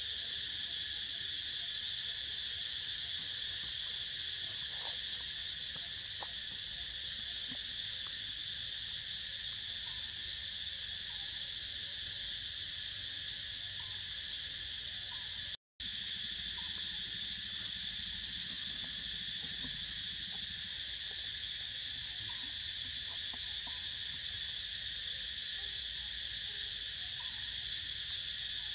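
Steady, high-pitched chorus of insects droning without a break. It cuts out for an instant just past halfway.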